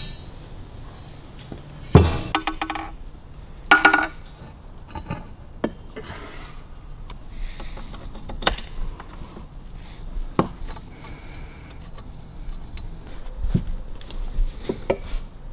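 Metal tools and engine parts clinking and knocking as an engine crankcase is handled on a workbench. There are two ringing metal clinks about two and four seconds in, then scattered light taps and clicks.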